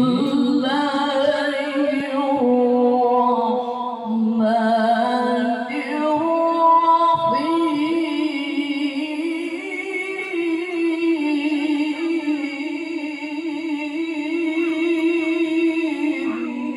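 A man reciting the Quran in the melodic tilawah style into a microphone: one long melismatic phrase that ends on a long, wavering held note, breaking off near the end.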